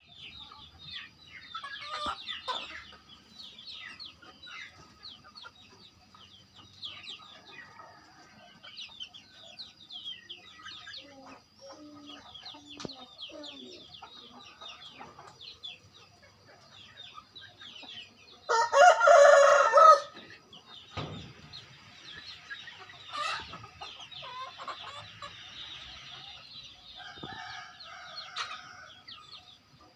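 A flock of native chickens (ayam kampung) clucking and peeping continually, with one rooster crowing loudly for about a second and a half just past the middle, the loudest sound here.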